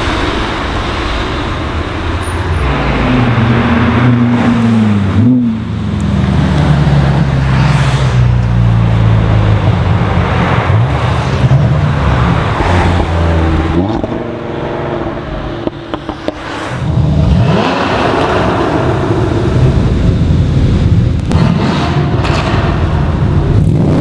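Cars pulling away past the roadside one after another, engines accelerating under a concrete road bridge. One engine drones steadily for most of the first half. After a short lull past the middle, another engine revs up sharply.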